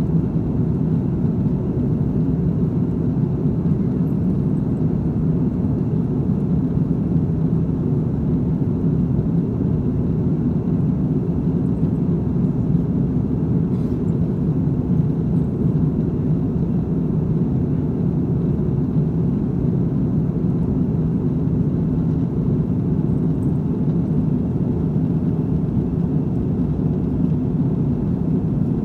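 Steady cabin drone inside an Airbus A330-300 airliner in flight, heard at a window seat by the wing: a constant low rumble of its Rolls-Royce Trent 700 engines and the airflow, unchanging throughout.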